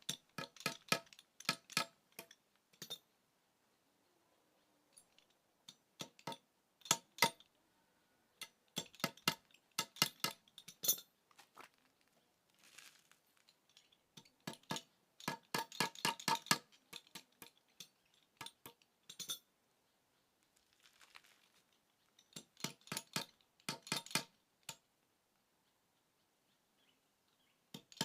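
Hammer driving nails into timber, in bursts of quick, ringing metallic strikes with short pauses between the nails.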